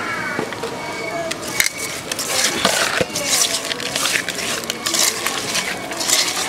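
A hand squishing and rubbing whole mud perch fish with oil and spice pastes in a bowl, an irregular wet squelching that starts about a second and a half in.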